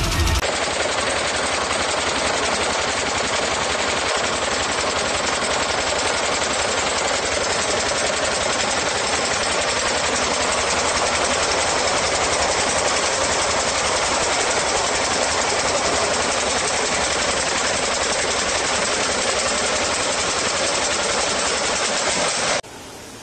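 Circular wire braiding machine running at speed, a steady dense mechanical rattle as it braids a metal wire sleeve, stopping abruptly near the end.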